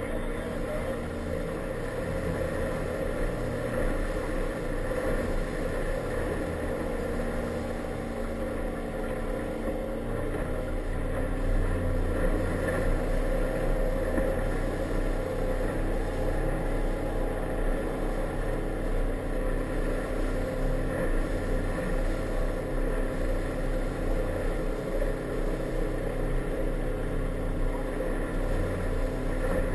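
Inflatable motorboat's engine running steadily under way, with water noise from the hull; it gets slightly louder after about ten seconds.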